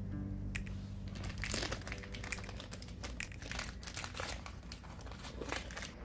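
Irregular light clicks and crinkling rustles of small objects being handled.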